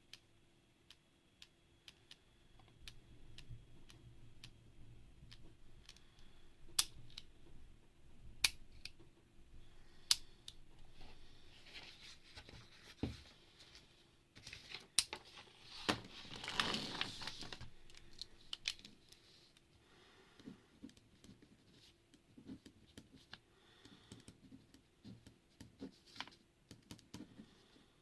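Mechanical keyboard keys clicking in scattered, irregular keystrokes. A louder stretch of noise lasts about two seconds just past the middle.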